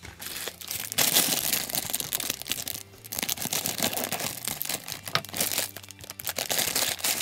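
Clear plastic LEGO parts bag crinkling as it is handled and torn open.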